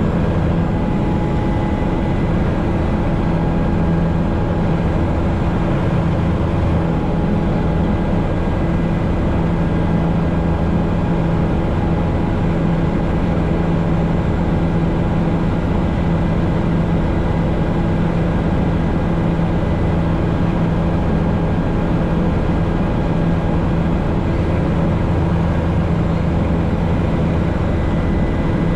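Helicopter running steadily in flight: a constant drone of engine and rotor with a steady hum and a thin high whine over it.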